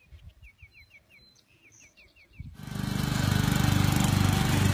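A bird chirps faintly in a quick run of short calls. Then, just over halfway through, the small engine of a ride-on machine cuts in abruptly and runs loud and steady.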